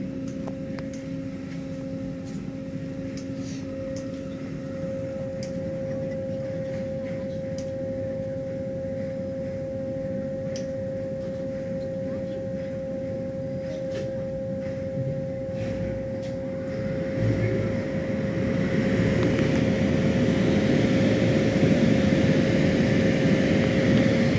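Automatic tunnel car wash machinery running, heard from inside a car: a steady hum with a few light clicks. About 17 seconds in, a louder rushing roar of air and water builds and stays loud to the end.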